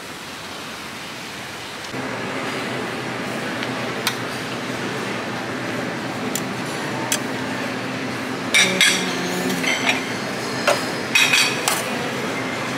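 Plates, glasses and cutlery clinking in a buffet restaurant over a steady background hum, with sharp clinks scattered through and two clusters of them in the second half. The first two seconds are a steady rushing noise before the restaurant sound begins.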